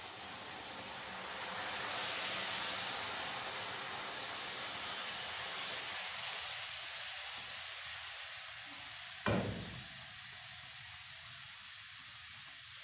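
Hot sugar syrup poured into semolina roasting in hot oil, hissing and sizzling hard as the water boils off. The hiss is strongest a couple of seconds in and slowly dies down, with a single clank about nine seconds in.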